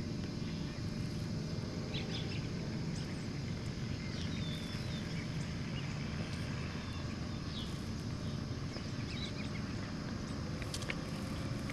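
Steady outdoor background noise, mostly a low rumble, with a few faint bird chirps and a few light clicks near the end.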